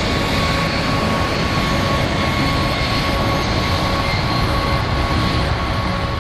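Jet airliner engines at high power: a loud, steady rush of noise with a steady high whine over it.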